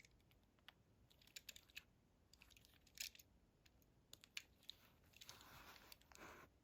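Faint, scattered light clicks and taps of die-cast toy cars being handled and set down on a surface, with a soft rustle near the end.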